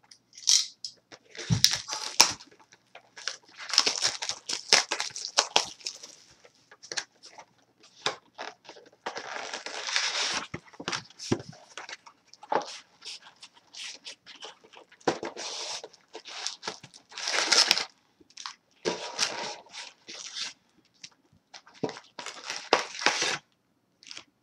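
A sealed cardboard trading-card box being slit open and unpacked, then foil-wrapped card packs crinkling and rustling as they are pulled out and stacked, in irregular bursts.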